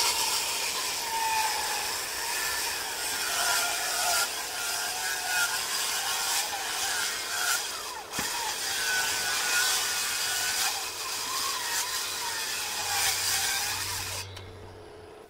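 Makita handheld circular saw cutting along the top of a thick wooden slab, its whine wavering as the blade is pushed through the wood. The sound dips briefly about halfway through and fades out near the end.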